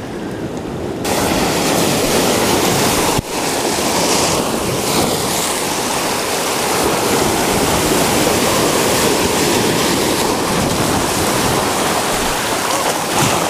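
Surf washing and foaming over dark rocks at the water's edge: a loud, steady rush of water, muffled for the first second and then full, with a brief break about three seconds in.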